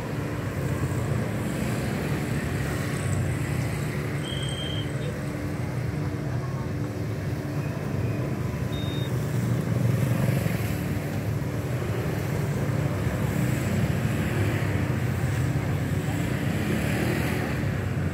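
Continuous traffic of motorcycles and scooters, with a few cars, crossing the railway tracks, their engines running at low speed in a steady, dense rumble.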